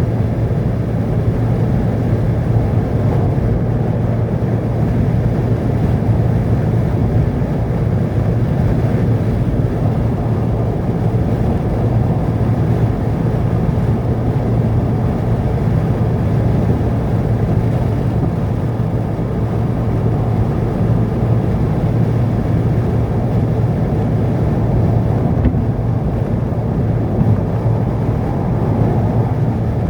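Steady low rumble of a vehicle driving along a road, with engine and road noise that holds even throughout.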